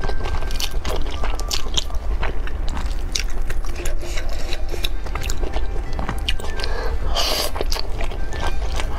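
Close-up mouth sounds of a person eating spicy stir-fried noodles: wet chewing with many small clicks, and a noisy slurp of noodles about seven seconds in.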